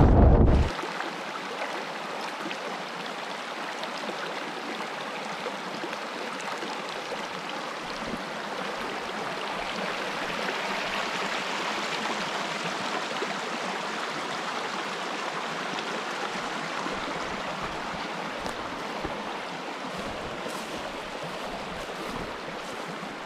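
A brook flowing, a steady rushing of water that swells slightly in the middle. A brief gust of wind on the microphone comes in the first half second.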